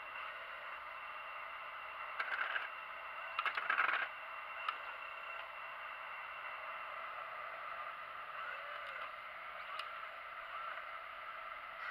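Magom scale model excavator running with a steady whine, slewing and moving on its tracks, with two short louder rough bursts about two and three and a half seconds in.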